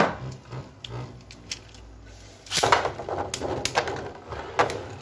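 Beyblade spinning tops whirring and clattering in a plastic stadium, with a sharp hit right at the start. From about two and a half seconds in there is a dense run of rapid sharp clicks as the tops knock against each other and the stadium wall.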